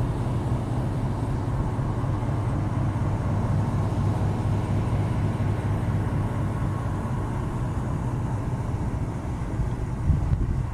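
A train running, with a steady low rumble that does not let up.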